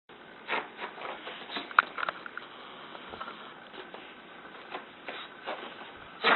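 Irregular light taps and clicks, a few to the second, over a steady faint hiss; the sharpest click comes about two seconds in and a louder cluster near the end.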